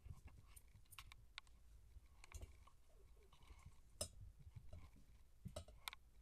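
Faint, scattered clicks and scuffs of kittens' paws and claws on carpet as they scamper and wrestle, with the sharpest click about four seconds in.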